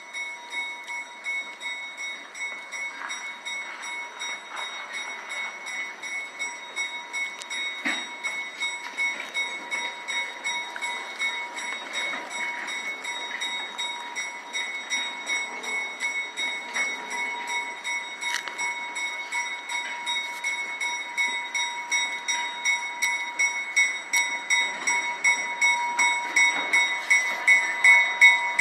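Railroad passenger coaches and a caboose rolling slowly by on the track, wheels clacking over rail joints in a steady rhythm that gets louder near the end, over a steady high-pitched whine.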